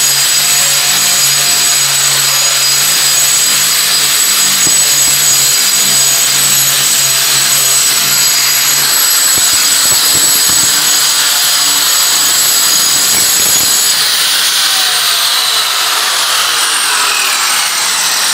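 Electric angle grinder running against a cement-plastered wall, grinding off protruding sand grains to smooth it before skim coating. Near the end its whine falls steadily in pitch as the motor winds down.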